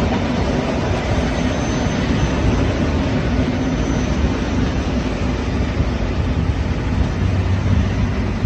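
Two coupled EN57 electric multiple units running slowly on a distant track as they brake for a stop, heard as a steady low rumble and hum.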